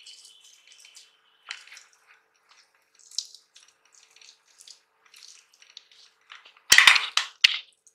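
Boiled potatoes being peeled and mashed by hand on a plate: soft, wet squishing and crumbling sounds, with a louder clatter of knocks near the end.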